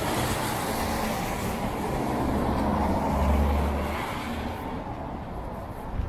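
A car driving past on a rain-soaked road, its tyres swishing on the wet asphalt over a low engine rumble. It grows loudest about three seconds in and then fades away.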